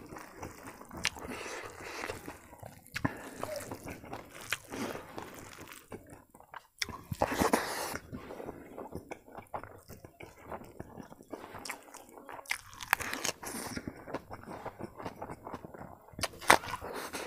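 A man eating rice and omelet curry by hand, close to the microphone: fingers working the food in the bowl, then mouthfuls bitten and chewed, heard as a run of short wet clicks and smacks with a few louder bursts.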